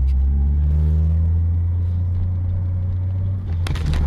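Car engine and road noise heard inside a moving car through a dashcam microphone, a steady low drone. Near the end, sudden sharp clattering knocks cut in.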